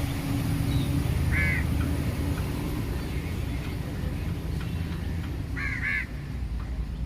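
A crow cawing once, then twice in quick succession about four seconds later, over a steady low rumble.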